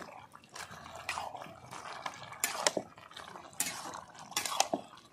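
Flat metal spatula scraping and knocking against a metal kadai as a wet, simmering vegetable curry is stirred, in several short strokes about a second apart.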